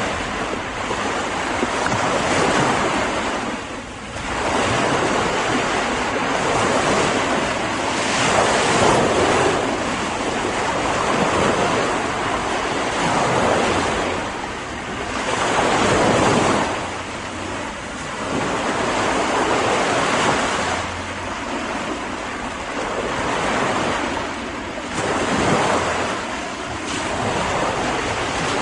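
Ocean waves breaking and washing on a beach, swelling and falling every few seconds, with wind.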